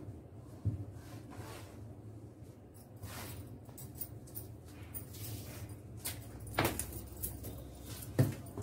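Cloth rustling and sliding as it is smoothed and folded flat on a table, with a few short knocks of hands on the tabletop, the sharpest near the end, over a steady low hum.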